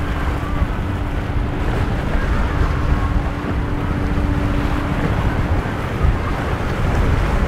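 Wind buffeting the microphone over breaking waves and running boat engines, with a steady hum that stops about five seconds in.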